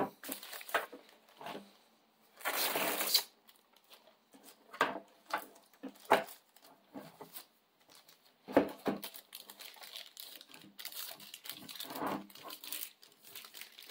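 Thin plastic sleeves crinkling and rustling in irregular bursts as they are pulled off a router's antennas. There are a couple of sharp knocks partway through as the antennas are handled.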